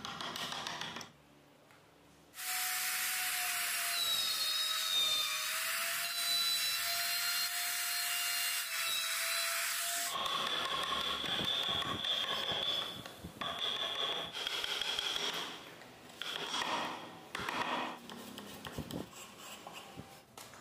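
An electric power tool cutting into wood in a long continuous run, its motor whine wavering slightly under load. About ten seconds in it switches to shorter on-and-off runs with a higher whine.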